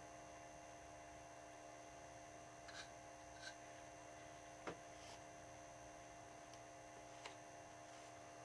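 Near silence: room tone with a steady electrical hum and a few faint, short clicks.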